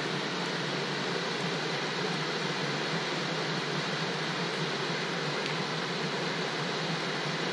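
Steady hiss of tyre and road noise inside a car's cabin while driving on a snow-covered road.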